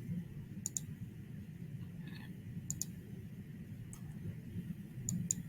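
Computer mouse button clicks, a few single and double clicks spaced out over a few seconds, over a faint low hum.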